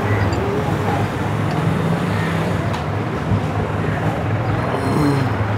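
Steady low hum and rumble of background noise, with one faint click about two and a half seconds in.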